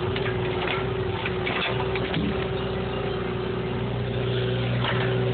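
Bobcat 325 mini excavator's diesel engine running steadily under hydraulic load while the arm carries and swings a log, with a few short knocks and rattles from the machine.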